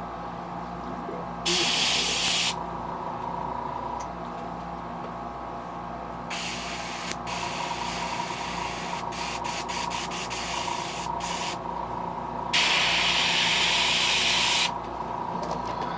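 Airbrush spraying paint onto a lure in bursts of hissing air: a short burst, then a run of quick on-off trigger taps, and a longer, louder burst near the end. A steady low hum runs underneath.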